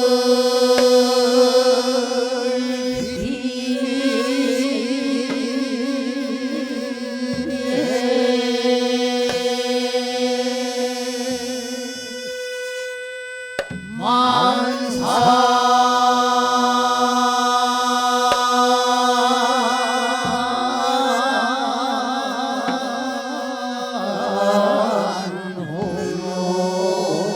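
Mixed men's and women's chorus singing a Korean ban-saseol sijo in the Naepoje style: very long held notes with slow wavering vibrato. The voices break off for a breath about 12 seconds in, then resume, and the pitch steps down near the end. A few soft low thumps sound underneath.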